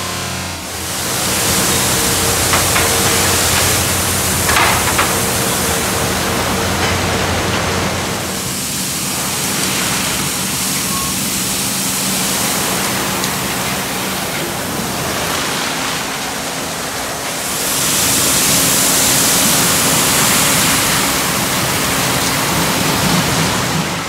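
Automatic car wash spray applicator hissing steadily as it sprays soapy water onto a passing car, with a steady low machine hum underneath. The spray grows louder for a few seconds about three-quarters of the way through.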